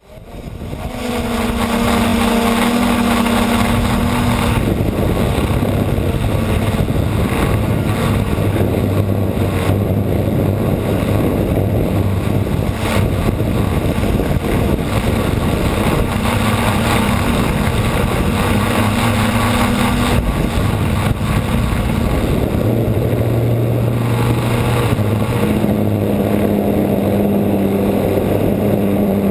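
Motor and propeller of a small camera-carrying remote-controlled aircraft, heard close on board with wind noise, running loud and steady. Its hum shifts up and down in pitch several times.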